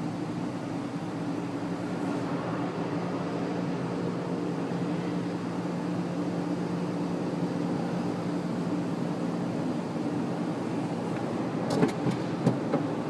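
Automatic car wash machinery heard from inside the car: a steady humming drone over a wash of noise, with a few sharp knocks near the end.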